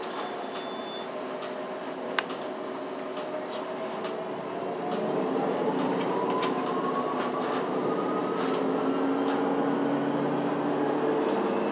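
City bus engine and drivetrain heard from inside the cabin. It drones at low speed, then about five seconds in it gets louder and a whine climbs steadily in pitch as the bus accelerates. Scattered clicks and rattles from the cabin.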